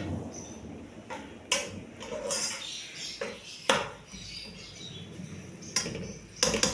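Metal slotted spoon clinking and scraping against a metal cooking pot while sliced onions are stirred in oil, with several sharp clinks spread through the stirring.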